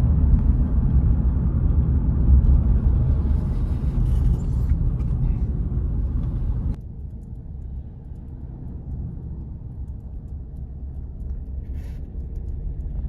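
Low, steady rumble of a car in motion. It drops sharply in level about seven seconds in and carries on more quietly.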